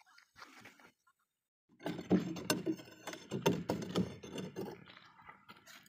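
A wooden stick knocking and scraping inside a square metal tin as a grey mix is stirred, a quick, irregular run of knocks starting about two seconds in.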